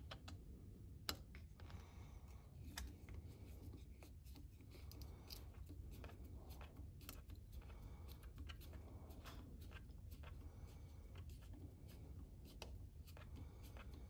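Faint clicks and ticks of a T10 security Torx screwdriver bit turning the pivot screw of a Leatherman Wave multitool, small metal-on-metal sounds, with one sharper click about a second in.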